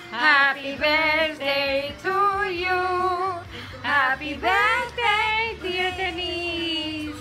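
Two women, one of them elderly, singing together, with long held notes that waver in pitch.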